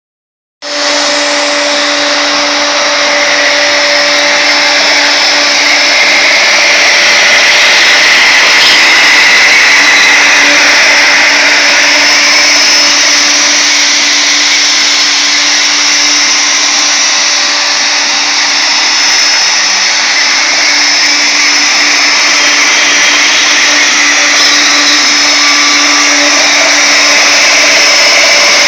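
Wood router mounted as the spindle of a home-built CNC router, running steadily with a constant high whine as a small ball-nose bit carves wood on a finishing pass.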